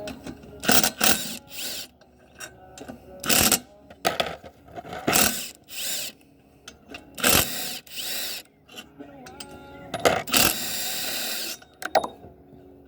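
Cordless impact drill with a 1/2 inch socket running in short bursts, backing out the cylinder head bolts of a 12 hp Briggs & Stratton flathead engine. There are about seven bursts with pauses between them, and the longest runs for about a second and a half, about ten seconds in.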